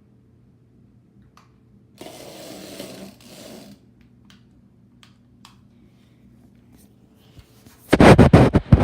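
Small remote-control toy driving across a floor: a faint steady motor hum with a short rasping run of its wheels, a few light ticks, then a quick series of loud knocks and bumps near the end.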